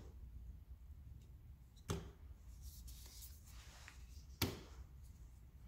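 Tarot cards being laid down onto a table: two short taps about two and a half seconds apart, over quiet room tone.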